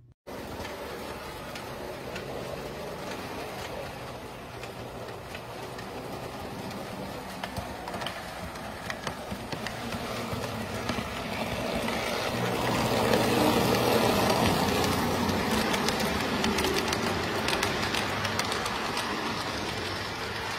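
Postwar Lionel O-gauge electric trains running on three-rail track, wheels rumbling with many small clicks over the rail joints under a steady electric hum. A Santa Fe F3 diesel comes toward the microphone and passes it about two-thirds of the way through, where the sound is loudest, and it eases off afterwards.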